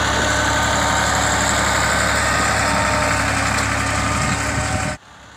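Massey Ferguson 260 Turbo tractor's diesel engine running steadily as it pulls a rotary tiller through the soil. The sound cuts off suddenly near the end.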